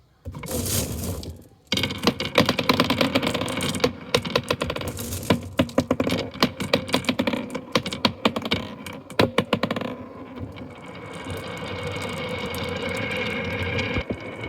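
Marbles clattering down a wooden marble run, a dense, fast rattle of clicks. About ten seconds in, the clicking thins out into a steadier rolling rumble.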